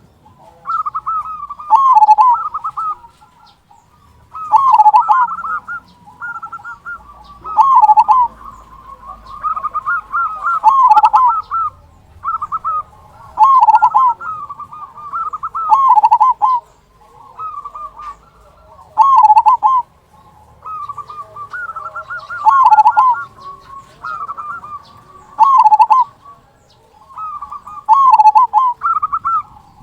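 Zebra dove (perkutut) cooing: a phrase of quick coos ending in a louder, lower final note, the prized big 'kung', repeated about every three seconds.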